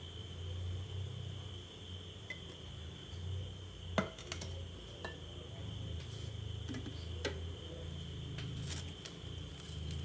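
A few sharp clinks and knocks of a glass mixing bowl and whisk, the loudest about four seconds in, as the bowl is emptied into a glass container and set aside.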